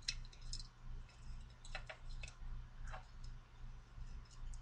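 Light, irregular clicks and short scratches of fingers or a small tool picking stubborn adhesive tape off a small electronic part.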